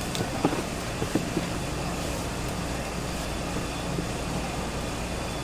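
Steady hum of a busy street-market stall, with a few light taps and knocks in the first second and a half.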